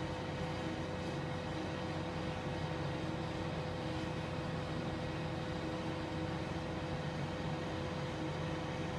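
Bobcat skid-steer loader's engine running steadily at a constant pitch, heard from indoors through a window.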